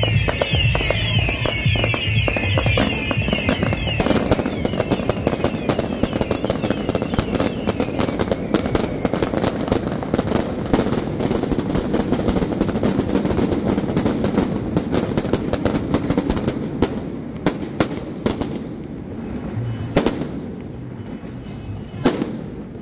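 Fireworks display: high falling whistles over the first few seconds, then a dense rapid crackle of bangs from firecrackers and aerial shells that thins out to a few single booms near the end.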